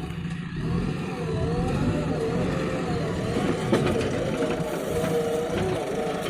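JCB 3DX backhoe loader's diesel engine working, its pitch rising and falling as the load changes.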